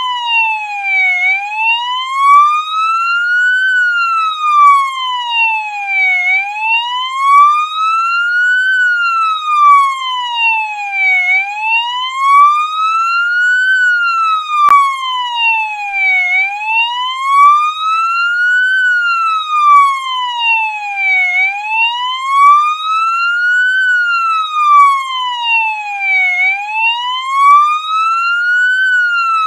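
Police siren sounding a slow wail: its pitch glides smoothly up and back down about once every five seconds, again and again.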